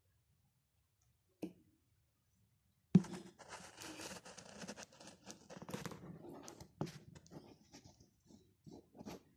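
A single click, then about three seconds in a sudden bump followed by a few seconds of rustling and crackling, which breaks up into scattered clicks near the end.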